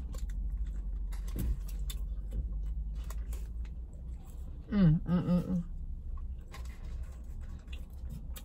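A person chewing a fried chicken biscuit, with small mouth clicks and light rustles of the paper wrapper, and a short hummed 'mmm' about five seconds in. A steady low car hum runs underneath.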